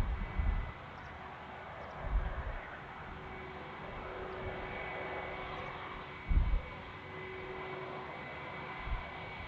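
Airbus A320 jet engines at taxi power: a steady whine and hiss with high, even tones. A few brief low thumps break in near the start, about two seconds in and about six seconds in.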